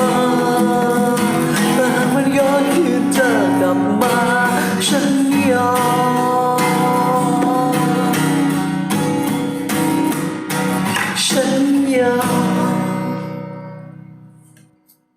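Closing bars of a pop ballad karaoke backing track, with acoustic guitar and a singing voice, fading out near the end.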